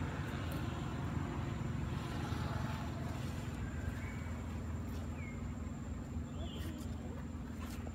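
Steady low engine drone, like a vehicle idling, running throughout. A few short, faint high chirps sound over it about halfway through.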